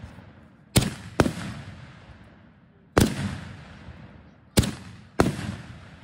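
Consumer aerial fireworks going off: five sharp bangs, two close together about a second in, one about three seconds in and two more near the end, each echoing away.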